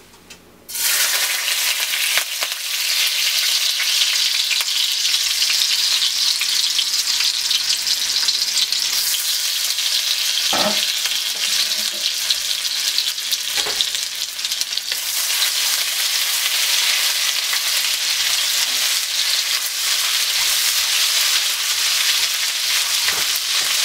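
Finely chopped garlic and ginger paste sizzling in hot oil in a nonstick wok, a steady frying hiss that starts abruptly under a second in. There are a couple of light knocks around the middle, and a wooden spatula stirs it near the end.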